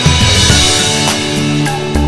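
Background music with a steady drum beat over held instrumental tones.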